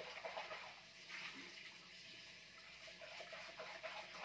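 Faint, steady rush of running water, like a kitchen tap left running.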